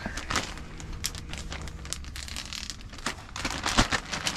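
Plastic packaging crinkling and rustling as it is handled, in irregular bursts that grow busier in the second half.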